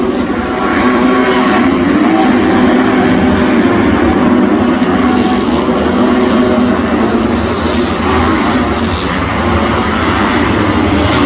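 Several motocross bikes racing on a dirt track, their engines revving together, rising and falling in pitch as they accelerate and shift.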